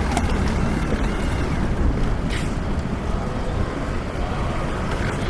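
Road traffic on a busy city street: a steady low rumble of passing vehicles.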